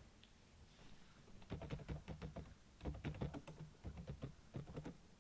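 Typing on a computer keyboard: a quick run of keystrokes in a few short bursts, starting about a second and a half in and stopping just before the end.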